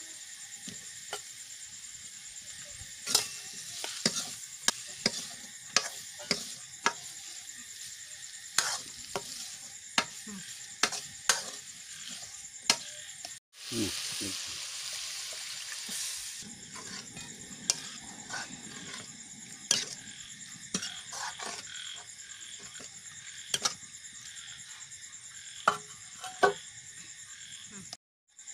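Steel ladle stirring, scraping and knocking against a steel kadai as diced potatoes and shrimp fry in curry masala, with sizzling; about halfway through, water goes into the hot pan and it hisses louder for a couple of seconds. Night insects chirr steadily behind.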